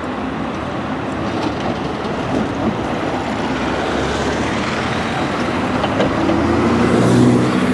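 Diesel double-decker bus, an Alexander Dennis Enviro400 with East Lancs Olympus body, driving up and passing close by, its engine growing louder toward the end. Steady city street traffic noise underneath.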